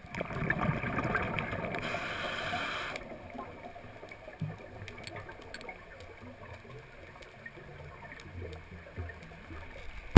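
Underwater sound of a scuba diver exhaling through a regulator: a rush of bubbles lasting about three seconds. Then only quieter underwater noise with scattered faint clicks.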